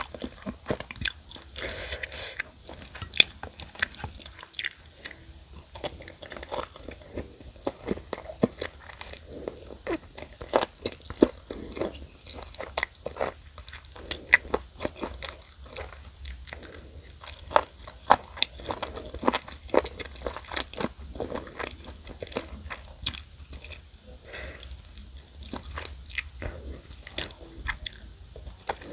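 Close-miked eating of crispy fried chicken: irregular sharp crunches of the fried coating being bitten and chewed, several a second, throughout.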